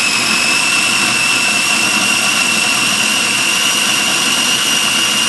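Electric food processor running steadily, its motor whining with a pitch that creeps slightly upward as it grinds a wet paste of chilies, tomatoes, turmeric, garlic and shallot.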